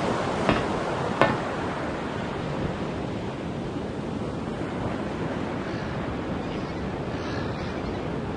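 Sea waves washing steadily, with wind, a constant noise with no pauses. Two short, sharp knocks come in the first second and a half, the second the louder.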